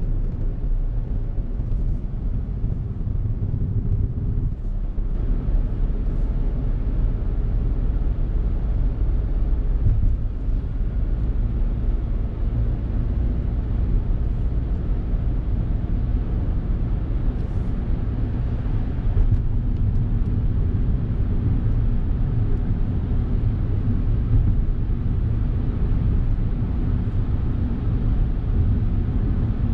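Steady low rumble of a Suzuki Hustler's engine and tyre noise, heard from inside the cabin while driving.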